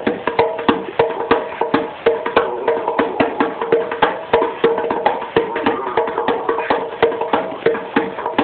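Bongos hand-drummed in a quick, steady rhythm of several sharp strikes a second.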